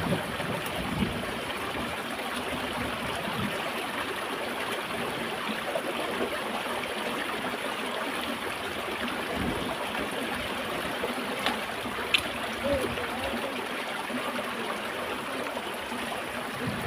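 Small stream running over rocks: a steady rush and trickle of water. Two brief sharp clicks a little past the middle.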